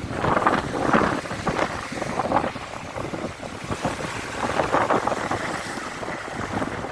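Wind buffeting the microphone over water rushing along a sailing boat's hull, coming in uneven gusts.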